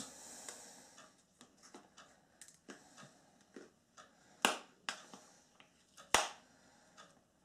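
Faint scattered clicks and taps of objects being handled, with two sharper clicks about four and a half and six seconds in.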